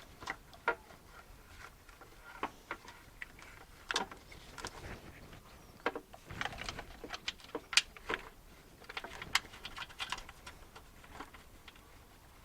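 Irregular clicks and knocks of hands and tools working plastic parts while a windscreen washer bottle is refitted, several sharper knocks in the middle.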